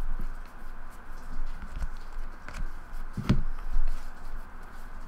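A stack of hockey trading cards being flipped through by hand: cards sliding against each other with soft papery rustles and ticks, one louder tap a little over three seconds in, over a steady faint hiss.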